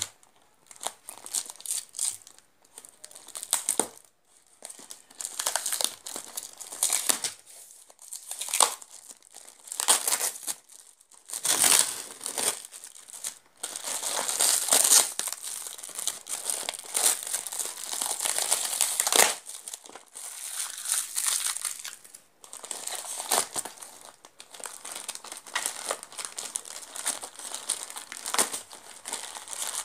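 Plastic courier mailer being torn open and crumpled by hand: irregular crinkling and tearing of thin plastic, in stretches broken by short pauses.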